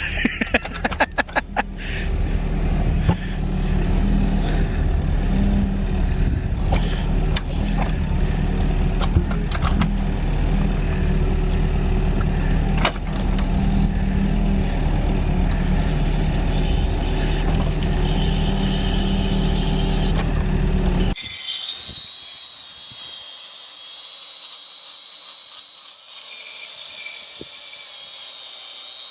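A machine's engine running steadily while it works a rotating log grapple, with a low even hum and occasional knocks. About twenty seconds in it cuts off abruptly to a much quieter background with a faint high whine.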